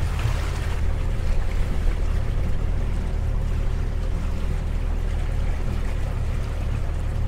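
Sailboat's inboard engine running steadily at low revs through its saildrive, a constant low hum, over light water and wind noise.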